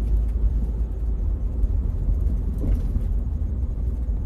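Steady low rumble of a vehicle on the move, heard from inside the cabin: road and engine noise.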